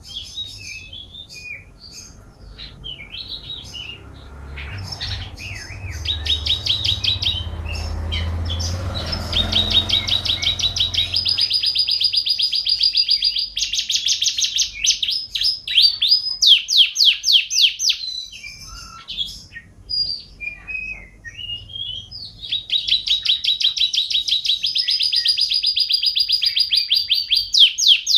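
Domestic canary singing a long, varied song: chattering notes, then fast trills of rapidly repeated notes held for several seconds at a time, breaking off and starting again. A low rumble sits under the song for several seconds early on.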